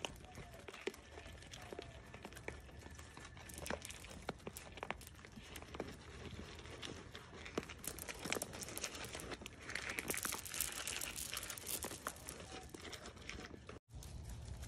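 Deer eating feed from a hand-held plastic cup close to the microphone: an irregular run of crunching, crinkling clicks, with a sudden moment of dead silence near the end.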